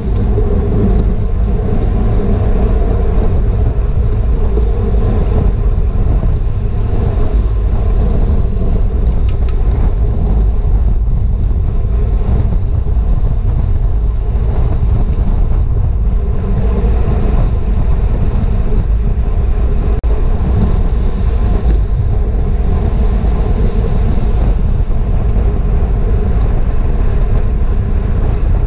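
Wind rushing over a GoPro's microphone on a racing bicycle at speed: a loud, steady low rumble with a few faint ticks.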